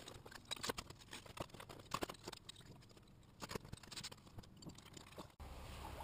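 Faint, irregular clicks and knocks of tools and metal parts being handled while a motorcycle is taken apart. Near the end it cuts to a steady low hum with a few light ticks.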